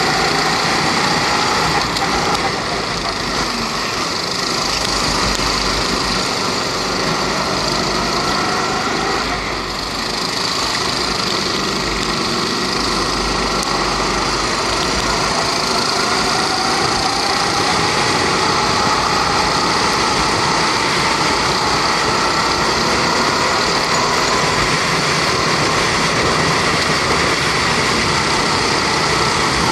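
Rental kart's 270 cc four-stroke single-cylinder Honda engine running under racing load, heard onboard. The engine note dips briefly about ten seconds in, then climbs slowly as the kart accelerates.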